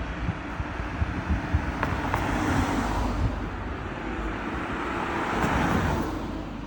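Road traffic going by: the noise of passing cars swells twice, once about two and a half seconds in and louder near the end, then fades, over a steady low rumble.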